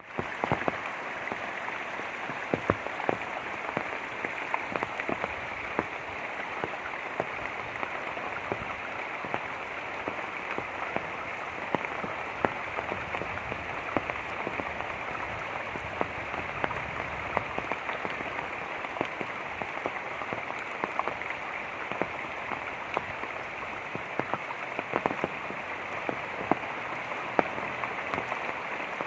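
Light rain pattering on surfaces, many scattered drops ticking over a steady hiss of running water.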